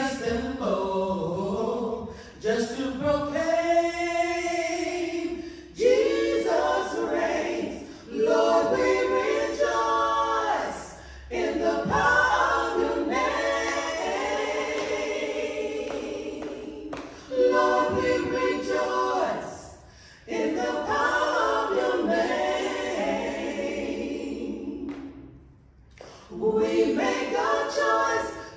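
A small gospel praise team of mixed voices singing a cappella, in sung phrases of a few seconds each with short breaks for breath between them.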